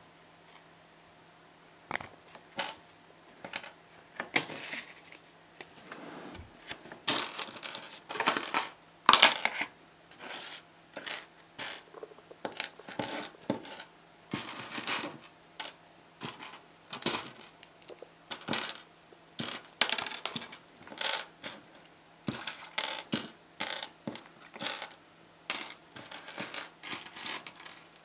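Tiny plastic LOZ micro building bricks clicking and clattering on a wooden tabletop as they are picked from the pile and pressed together: many sharp, irregular clicks and taps, starting about two seconds in.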